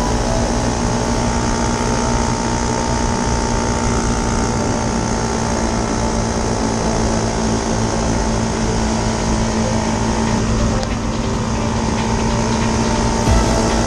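Motorcycle engine running at a steady cruising speed with wind and road noise, its pitch easing slightly lower about ten seconds in.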